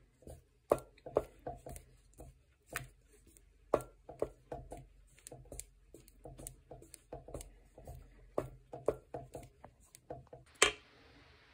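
A utensil stirring melted chocolate in a bowl during tempering, off the heat, giving uneven light taps and scrapes against the side of the bowl, two or three a second. A short louder noise comes near the end.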